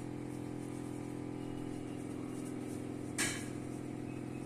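Steady low machine hum made of several even, level tones, like a motor or fan running, with one brief noisy rustle about three seconds in.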